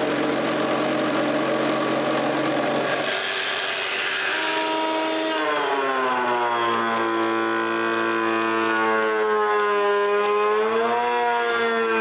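A jigsaw cutting through a thick hardwood board. About halfway through, a jointer takes over: its motor hums under a cut, the pitch sagging slowly as the board is fed across the knives and recovering near the end.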